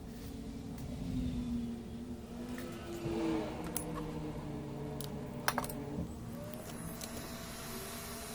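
Steady whirring hum of a hot-air rework station's blower, its pitch wavering slowly, with a few small metallic clicks of tools about five and a half seconds in, as the old HDMI port is worked off the PS4 board.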